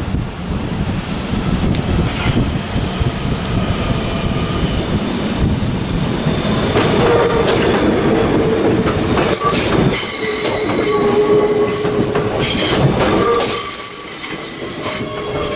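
A train running on the rails with a steady rumble. From about seven seconds in, the wheels squeal in several high, sustained tones.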